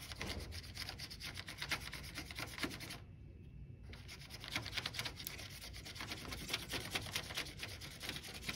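Paintbrush scrubbing watercolor paint across paper coated with wax crayon rubbing: a rapid run of scratchy strokes, with a pause of about a second a few seconds in.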